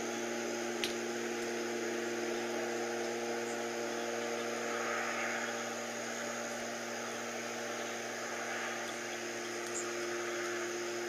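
Steady low droning hum of an unidentified distant machine, several steady tones at once, with a soft swell and fade about halfway through. The hum rises and falls over time, which the recordist compares to an engine or a failing transformer.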